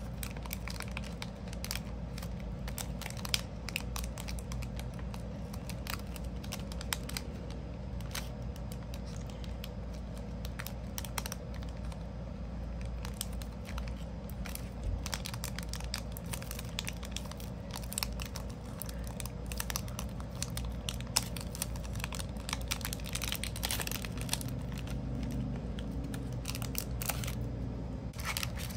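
Clear plastic bag crinkling and crackling as hands work a round bar of soap into it, in many small irregular rustles. A steady low hum runs underneath.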